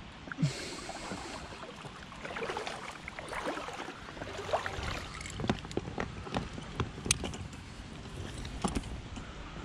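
Water splashing and lapping around a small inflatable boat, with scattered clicks and knocks as gear in the boat is handled and the marker buoy is grabbed at the side; a sharp knock about half a second in.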